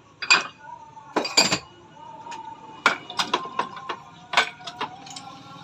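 Metal parts of a motorcycle rear shock absorber clinking and tapping together as they are handled and worked on: about ten sharp, irregular metallic knocks.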